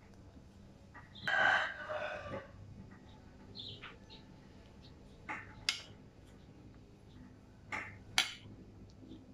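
A rooster crows once, starting a little over a second in and lasting about a second. Later come a few short clinks, like a spoon knocking against a bowl.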